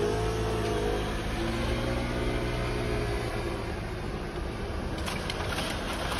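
Road traffic moving off: a moped engine revving as it pulls away, with cars driving slowly past. The engine tone rises and falls, then fades after about three seconds.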